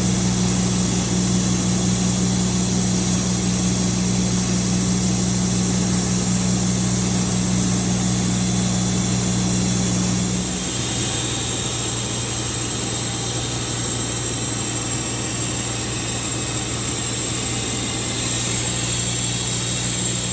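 Sawmill engine running steadily. About halfway through its pitch shifts and the sound dips slightly.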